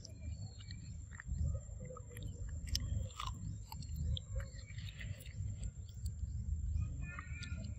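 Baby macaque chewing food close to the microphone, with irregular small clicks from its mouth.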